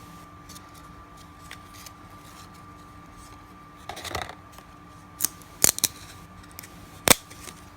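Baseball trading cards handled by hand, flipped and slid against each other: a few sharp snaps and a short scrape, the loudest snap about seven seconds in, over a faint steady hum.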